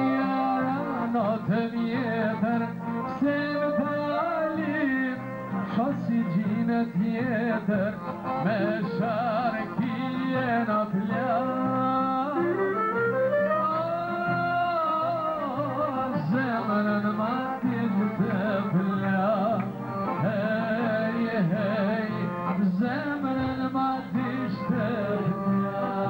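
Live Albanian folk music: a man singing into a microphone, accompanied by clarinet and accordion, with a long rising-and-falling held note near the middle.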